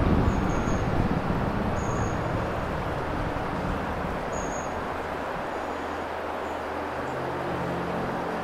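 Harsh electronic noise music played from a laptop: a dense, steady wash of hiss and rumble with a few short faint high whistles, and a low hum coming in near the end.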